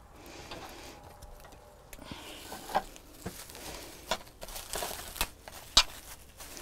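Cling film crinkling and rustling as it is wrapped tightly around a sandwich. It starts about two seconds in and goes on in irregular crackles, with two louder sharp snaps.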